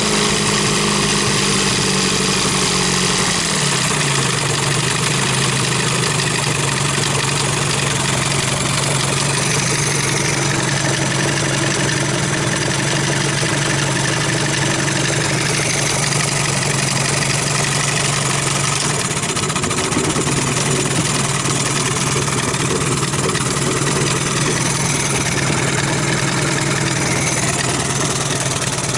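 Johnson Evinrude two-stroke outboard motor running steadily. About three seconds in its pitch drops as the revs fall back, and it then holds an even idle with its throttle plate, ignition advance and idle needle set for a low steady idle.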